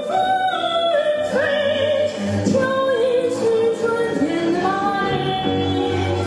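Woman singing solo into a microphone, holding long notes with a slight vibrato over instrumental accompaniment.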